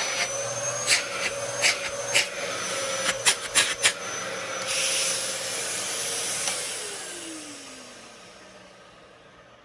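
Dyson DC07 upright vacuum cleaner running with a steady whine and rush of air, with several sharp knocks in the first four seconds. About six and a half seconds in it is switched off, and its motor winds down with a falling whine that fades out.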